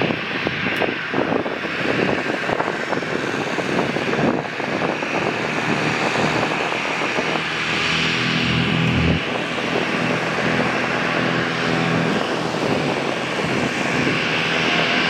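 Bombardier Global 5000 business jet taxiing, its twin rear-mounted Rolls-Royce BR710 turbofans running at low thrust: a steady hiss and whine, with a low drone joining about halfway through.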